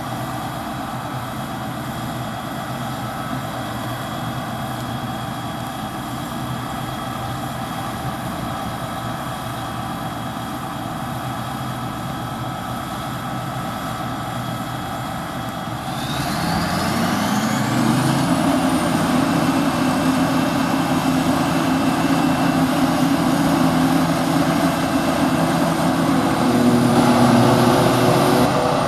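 Heavy diesel farm machinery running steadily. About two-thirds of the way through it revs up, with a whine that rises in pitch over about two seconds, and then runs on louder at the higher speed.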